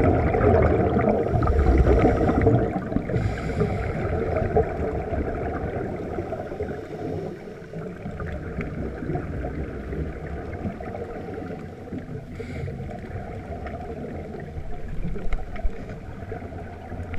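Scuba regulator exhaust bubbles gurgling underwater as a diver breathes out, loudest in the first couple of seconds, then a quieter steady underwater rush.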